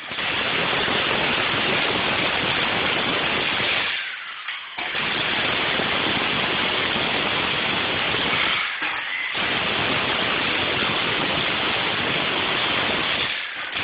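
Jackhammer breaking up hard material in long continuous runs, its rapid blows blurring into one dense rattle. It stops briefly about four seconds in, again near nine seconds, and just before the end.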